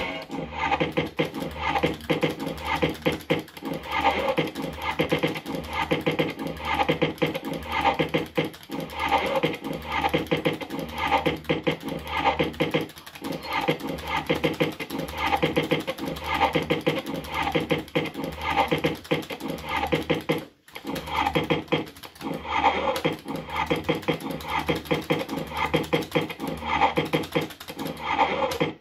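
JPM Red Hot 6 fruit machine playing game after game, with its reel spins and electronic sound effects repeating in a steady rhythm about once a second.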